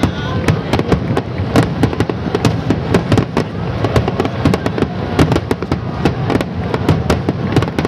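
Fireworks display: rapid, dense bangs and crackles of aerial shells bursting, several a second, over a continuous rumble.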